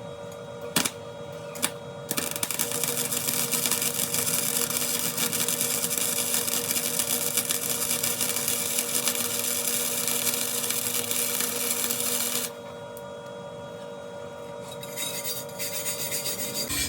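Electric welding arc crackling steadily on a steel wheel rim as the hole in it is welded up, one run of about ten seconds that starts and stops abruptly, after a couple of sharp clicks. Quieter scraping follows near the end.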